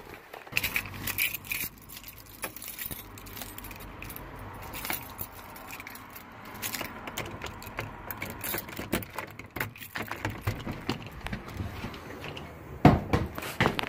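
Keys jangling, with scattered clicks and knocks, as a house door lock is worked.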